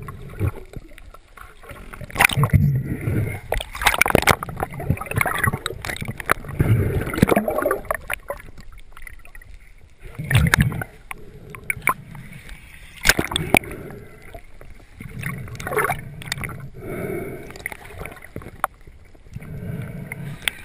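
Water splashing and sloshing around a small boat, with irregular knocks and splashes.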